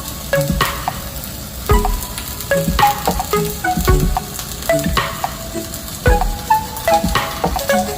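Electric arc welding crackling with a steady frying sizzle, under background music of short plucked melodic notes and a low beat about once a second.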